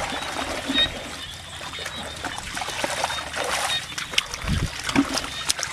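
Water splashing and trickling in an uneven, broken pattern, with scattered small clicks and splashes.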